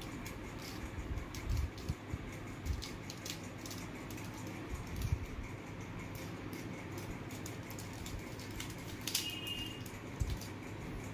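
Irregular plastic clicks of a mirror cube's layers being turned by hand, with a few soft knocks. A brief high chirp sounds about nine seconds in.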